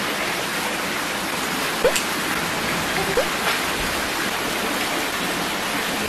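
Pork neck and mushrooms sizzling on a wire grill over charcoal: a steady crackling hiss of fat and juices, with a few sharp pops.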